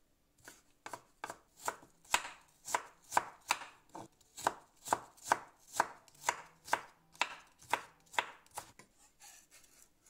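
A broad kitchen knife cutting stacked carrot slices into thin shreds on a wooden chopping board: a steady run of sharp knocks, about two or three a second, starting about half a second in and stopping near the end.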